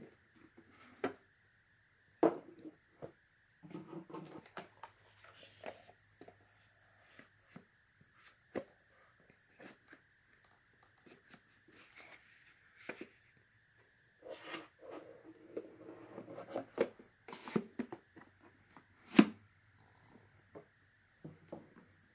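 Hands handling cardboard DVD packaging: a case sliding into its box sleeve, with scattered taps, rubbing and rustling. A few sharp knocks stand out, the loudest about nineteen seconds in.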